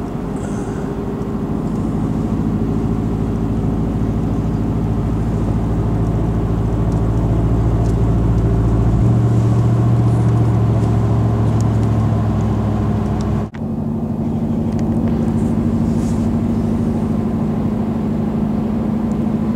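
Steady engine and tyre drone heard inside a vehicle's cabin while driving at highway speed. The engine note changes about halfway through, and the sound breaks off for an instant near two-thirds of the way in.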